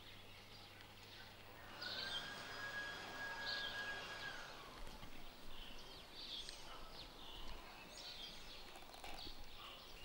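Faint outdoor ambience with small birds chirping on and off. About two seconds in, a steady high tone holds for a couple of seconds.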